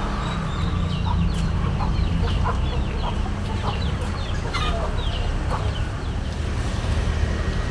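Birds calling in short, falling chirps several times a second over a steady low rumble.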